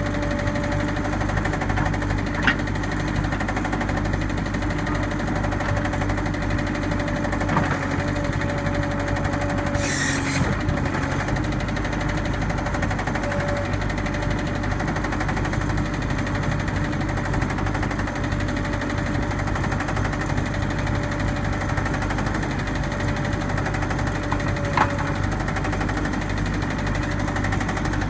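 New Holland 555E backhoe loader's diesel engine running at a steady speed. It carries an engine noise that the seller says could be an exhaust leak, a fuel knock or a bad injector.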